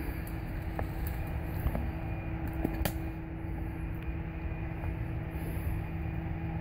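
A steady low hum with a rumble underneath, unbroken throughout, and a few faint clicks about one and three seconds in.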